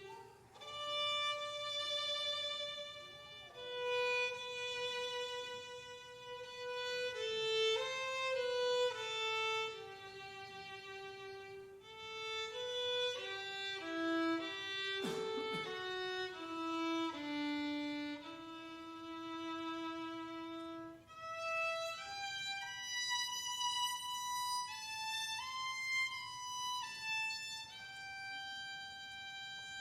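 Solo violin playing a slow, sustained melody, one note at a time, with a brief soft knock about halfway through.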